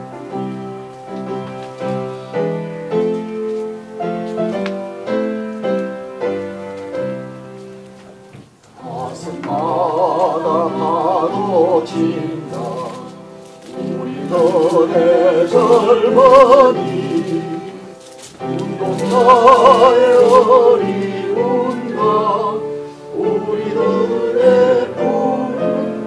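Piano playing a hymn alone for about eight seconds, then a congregation singing the hymn over the piano in phrases of a few seconds with short breaths between.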